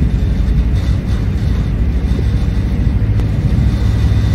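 Boat's engine running with a steady low rumble, heard from inside the boat's wooden cabin.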